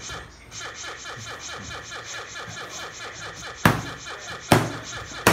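Sharp knocks on the tabletop, three of them under a second apart near the end, over a faint, fast, even pulsing.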